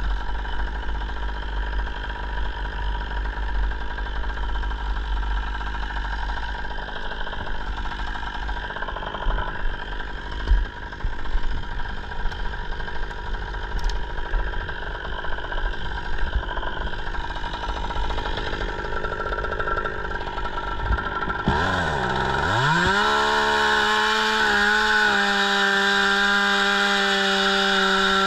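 A small engine hums steadily with a low rumble; then, about three-quarters through, a two-stroke chainsaw revs up sharply and holds at a high, steady full throttle.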